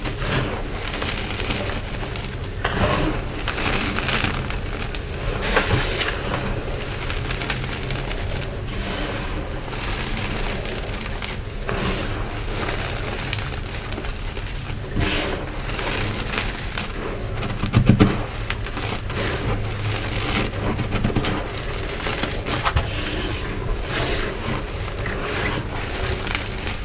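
Clumps of crunchy Nexo powder crushed in gloved hands and sifted through the fingers: continuous crumbly crunching and crackling, with one louder crunch about eighteen seconds in.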